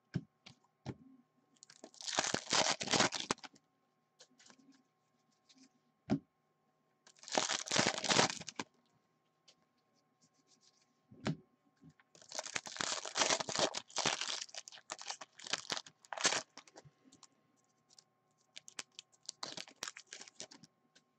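Trading cards being flipped and slid against one another in the hands, in four rustling bursts with a few sharp clicks between them.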